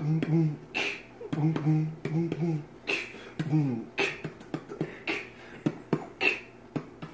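A person beatboxing: a run of sharp mouth clicks and pops mixed with short low hummed tones, the hummed tones dropping out about four seconds in while the clicks go on.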